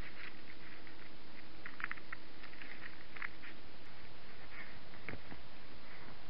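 Steady hiss from a trail camera's microphone, with a faint hum that stops about halfway through. Scattered faint ticks and crackles run through it, and one dull thump comes about five seconds in.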